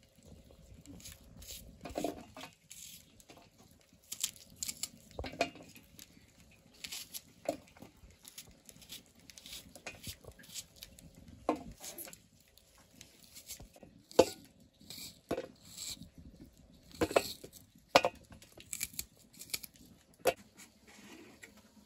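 Small red onions being cut by hand on a curved sickle blade, the slices dropping onto a steel plate: irregular crisp cuts and light clinks, a few louder ones ringing briefly on the metal.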